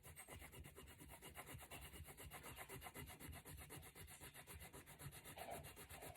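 Faint crayon scribbling on paper: rapid, even back-and-forth strokes as a red crayon colours in a paper figure.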